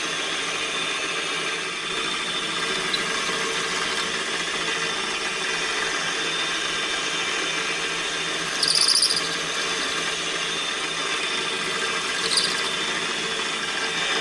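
Milling machine spindle running steadily while its cutter makes spring passes back through a 1-inch hole in a ring-knife blank, with no change to the depth of cut. Two brief high squeals come from the cut, one about nine seconds in and a shorter one about twelve seconds in.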